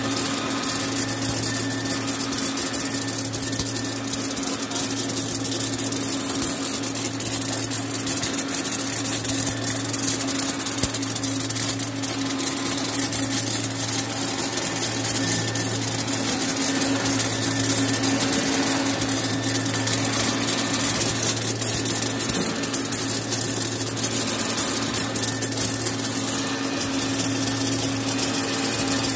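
Garlic colour sorting machine running: a steady machine hum that swells and fades every second or two, with a high hiss and faint rapid ticks as the garlic cloves are fed through.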